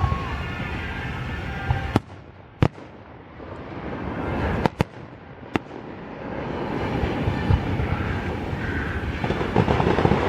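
Aerial fireworks going off: a dense, rattling crackle of many shells, which drops away about two seconds in. Five sharp, separate bangs follow, and the thick crackling builds up again from about six seconds.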